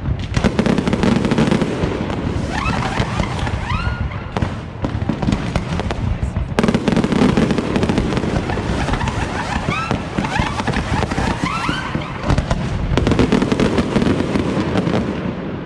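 Aerial fireworks display: a dense, continuous barrage of bursting shells and crackle, easing off near the end.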